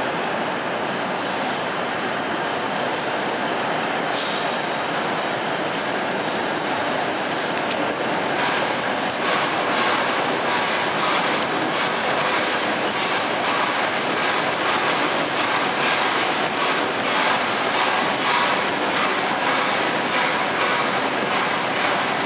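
Steam-hauled train behind LNER Peppercorn A1 Pacific 60163 Tornado rolling slowly into a station: a steady rumble of wheels on rail, growing a little louder about eight seconds in, then clicks as the wheels cross rail joints. A brief high squeal comes a little past halfway.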